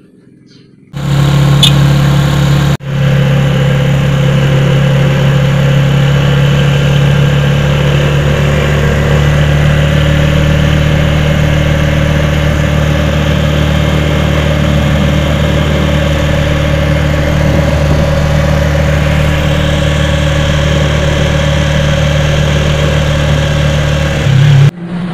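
Small vehicle's engine running at a steady pitch, loud and close, heard from inside the open passenger cab while riding along a road. It starts suddenly about a second in, breaks for an instant soon after, and cuts off abruptly near the end.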